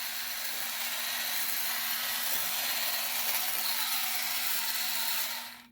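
Small battery motor and plastic gearing of a G1 Sky Lynx toy running in walking mode: a steady whirring hiss that cuts off suddenly near the end, as the toy is switched off.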